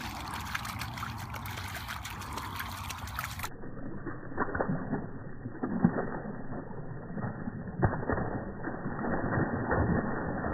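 Two huskies splashing and wading through shallow standing floodwater, with irregular splashes and a few sharper ones in the second half.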